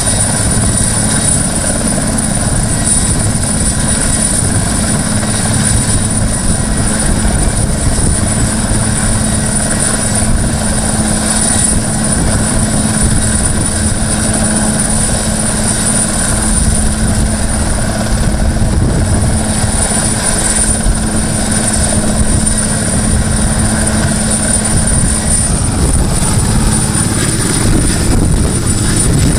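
Puma-family transport helicopter hovering low: a steady, unbroken rotor and engine noise with a thin, high turbine whine over it.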